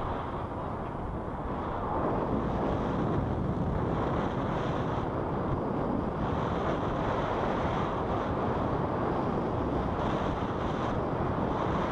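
Wind from a paraglider's flying speed rushing over a pole-mounted action camera's microphone: a steady, even wind noise that gets a little louder about two seconds in.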